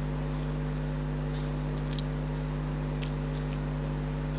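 Steady low mechanical hum with several fixed tones, and a few faint ticks.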